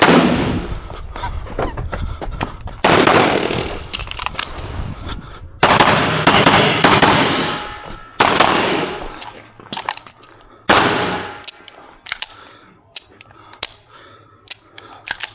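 Pistol fire during a timed IPSC course of fire. Five very loud shots come a few seconds apart, each trailed by a fading echo, with many shorter sharp cracks between them.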